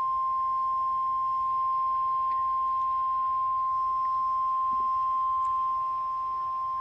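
NOAA Weather Radio warning alarm tone: a single steady 1050 Hz tone, loud and unbroken, sounding the alert for a test tornado warning.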